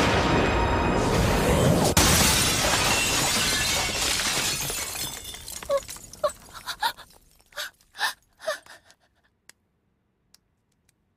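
Large glass window shattering in a long crash of breaking glass and debris, with a sharp crack about two seconds in. It fades away over the next few seconds, then a few light clinks of falling pieces follow.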